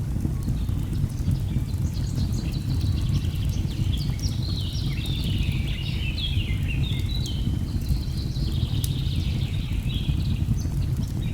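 Birds singing in quick chirps and trills over a steady low rumble of falling water, with scattered crackles from a wood fire.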